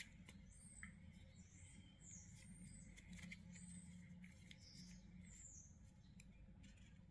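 Near silence: low room hum with several faint, short, high-pitched chirps and a few soft handling clicks.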